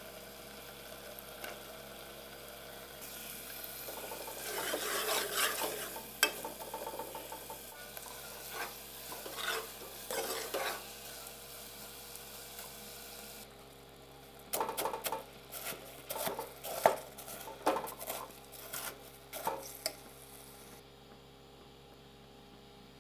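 Steel ladle stirring chickpea curry in a metal pot as it sizzles, in two bouts of scraping with sharp clicks of spoon on pot.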